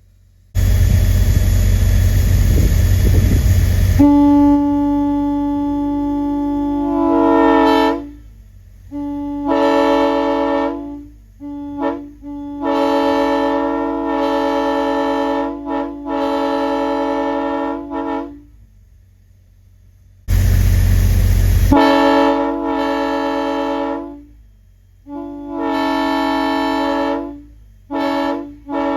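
A multi-chime locomotive air horn run on compressed air sounding a chord: one long blast, then a string of shorter blasts and a couple of quick toots. Twice, a loud rush of air, louder than the horn, comes just before it sounds: once about half a second in and once near 20 seconds in.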